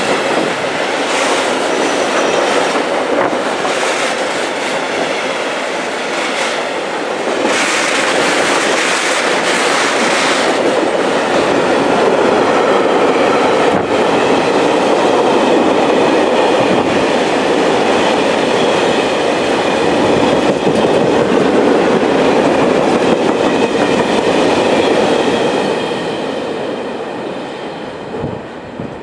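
Freight train wagons rolling past close by. Steel wheels clack over the rail joints at first, then settle into a steady rumble with a faint high ringing from the wheels. The sound fades near the end as the last wagon pulls away.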